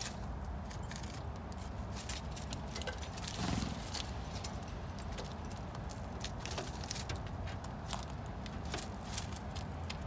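Irregular small cracks and taps of animals cracking and eating seeds at close range, over a low steady rumble.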